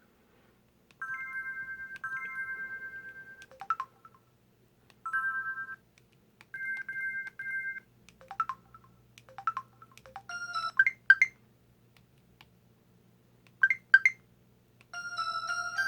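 Built-in alert and effect sounds of a Samsung Anycall SPH-W2500 mobile phone, played one after another with short gaps: held two-note electronic chimes, quick double beeps and brief upward-sweeping blips. A chime-like melody starts near the end.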